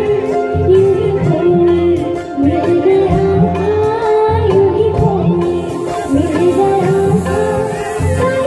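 A woman singing a Bollywood qawwali-style song into a microphone, with an ornamented, flowing vocal line over a live band's steady drum rhythm.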